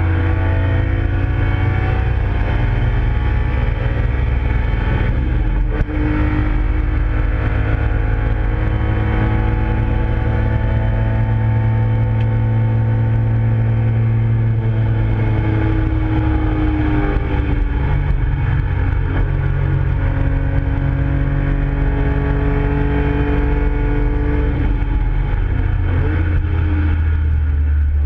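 Nissan Skyline GT-R (KPGC10) S20 twin-cam straight-six under hard acceleration, heard from inside the cabin on a racing lap. It is loud, and its pitch climbs through long pulls, with a brief drop in level about six seconds in.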